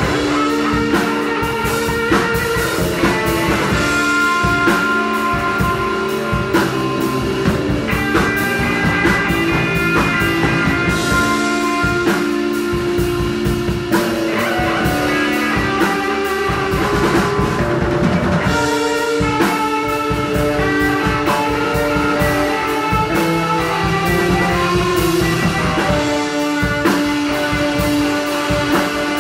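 Rock band playing live: electric guitar, electric bass and a drum kit, with steady drumming under held guitar notes.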